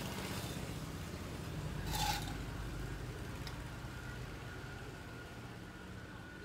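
Small metal parts of a motorcycle carburettor being handled during disassembly: a brief scrape about two seconds in and a small click a second and a half later, over a faint low background rumble.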